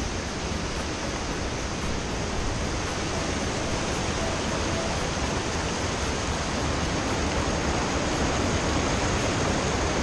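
Steady rush of water from a small river waterfall, slowly getting louder.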